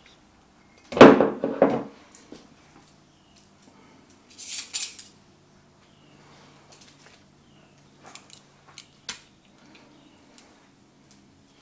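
Water poured from a glass cup into a ceramic slow-cooker crock, a short splash about a second in. A brief hiss follows, then light clicks of metal tongs against the platter and crock as ribs are lifted in.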